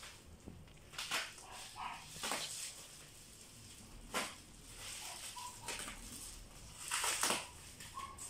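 Plastic packaging wrap crinkling and tearing in several short rustles as it is cut and pulled off a boxed part, the loudest burst near the end.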